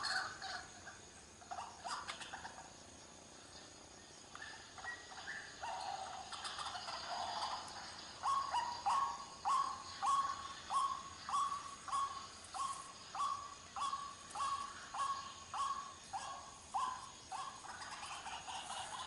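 White-breasted waterhen calling: a few irregular notes, then from about eight seconds in a long run of short, evenly repeated calls, about one and a half a second.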